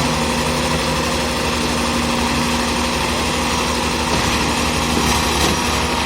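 Diesel engine of a concrete mixer pump running steadily at a constant speed, with an even low rumble and a steady hum.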